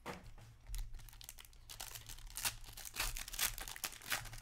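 Plastic wrapper of a hockey trading-card pack being torn open and crinkled by hand: a run of short crackling rustles.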